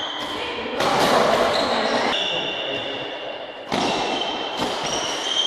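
Badminton doubles rally: several sharp racket strikes on the shuttlecock and repeated short high squeaks of shoes on the court floor, echoing in a large sports hall.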